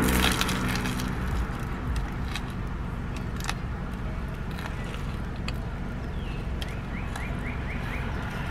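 Mouth sounds of biting into and chewing a crusty baguette sandwich: small sharp crackles of the crust scattered through the chewing, over a steady low rumble.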